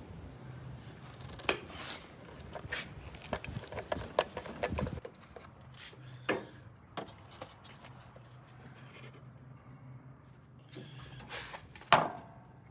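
Hands scraping and rustling debris out of a mower's casing, irregular rubbing and clicking strokes, with a sharp knock near the end. The debris is an animal's nest built in the casing over the winter, the cause of the starter problem.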